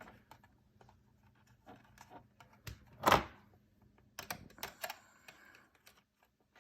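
Scattered small clicks and knocks of wires and small plastic alarm parts being handled while they are connected to terminals, with one louder rustle about three seconds in and a quick run of clicks about a second later.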